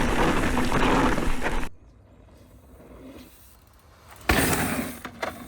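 Mountain bike riding noise, tyres rumbling over the dirt trail with wind on the microphone, which cuts off sharply about a second and a half in. Near quiet follows, then a sudden loud hit about four seconds in, fading over the next second.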